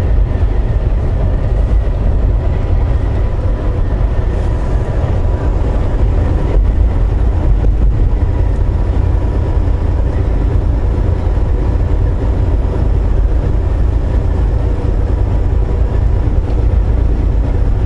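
Volvo VNL860 semi truck on the move, a steady low engine and road rumble heard inside the cab, with a faint steady whine above it.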